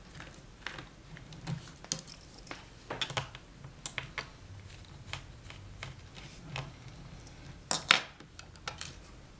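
Irregular light clicks and taps of a small screwdriver and screws as the screws holding a laptop's screen bezel are taken out, with a louder pair of clicks near the end.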